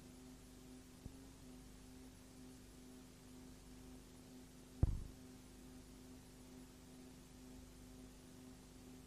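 Steady low electrical hum, with one short dull thump about five seconds in.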